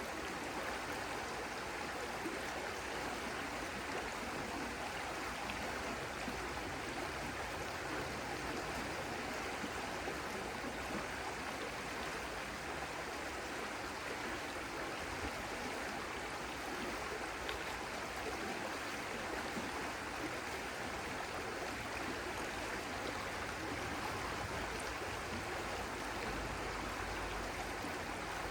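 Stream water flowing steadily, an even rushing and burbling with no change.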